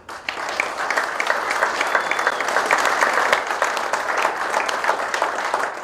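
Audience applauding: a dense, steady round of many people clapping.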